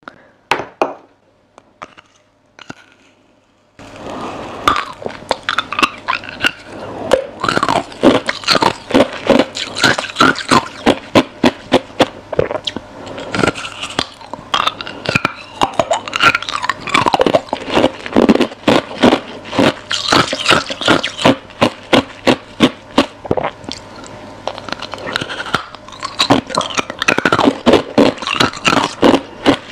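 Freezer frost ice being bitten and chewed close to the microphone: rapid, loud, crisp crunching, several crunches a second. Only a few quiet clicks come before it, and the crunching starts about four seconds in.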